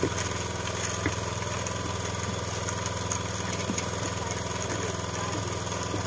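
An engine idling steadily with a low, even pulsing hum, with a few faint knocks over it.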